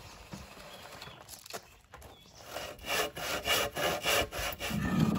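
Hand saw cutting through a thick wooden beam. Quieter scraping at first, then from about halfway in a run of quick, steady back-and-forth strokes, about three a second.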